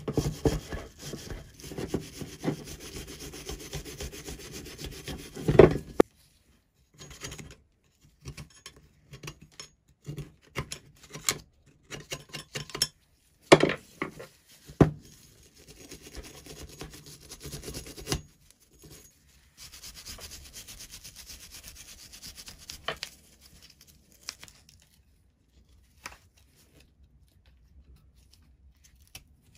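Small hand wire brush scrubbing rust off a rusty pipe cutter: a dense scratching for the first six seconds, then short separate scrapes and knocks with gaps between, and another stretch of scratching a little after twenty seconds.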